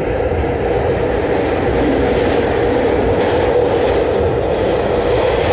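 SEPTA Kawasaki subway-surface trolley car heard from inside while running: a steady rumble of wheels on rail with a steady mid-pitched motor hum over it.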